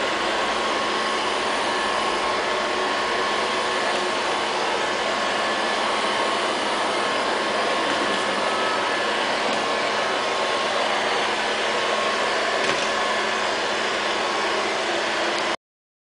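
LL-302 robot vacuum cleaner running: a steady whir of its suction motor and brushes with a faint steady whine, stopping abruptly just before the end.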